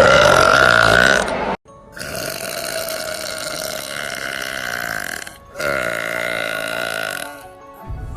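Three long, loud burps in a row from a girl. The first and loudest lasts about a second and a half. The next two are drawn out, about three seconds and two seconds long, each holding a steady pitch.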